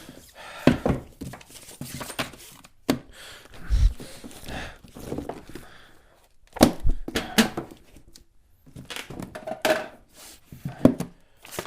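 Rummaging: irregular knocks and thuds with rustling and crinkling as objects are handled and moved about in a hurried search for a key, in a small room.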